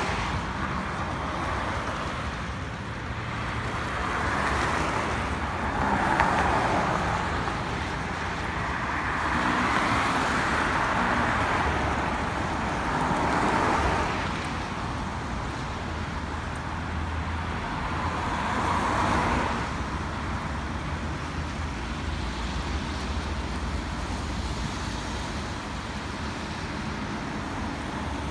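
Road traffic: cars passing one after another, the tyre and engine noise of each swelling and fading over a few seconds, over a steady low rumble.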